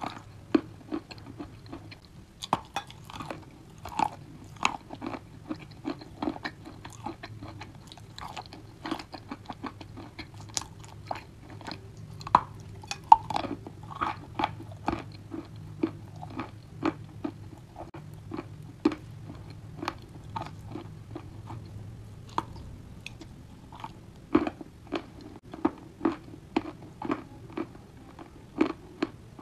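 Close-up crunching as a white chalky block coated in creamy paste is bitten and chewed: a run of sharp, dry crunches, irregular at about one or two a second, with softer chewing between.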